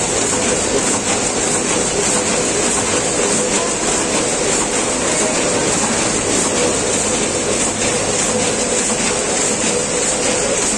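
Gantan GT14 SPA multihead weigher and Packit GT5S vertical form-fill-seal packing machine running at about 100 packs a minute: a steady mechanical clatter with a constant hum.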